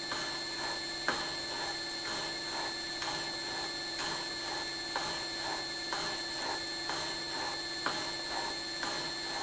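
Slotting head on a Bridgeport milling machine running, its cutter stroking up and down about once a second to cut a keyway in a steel motor coupler. A steady motor whine runs under a sound that repeats with each stroke.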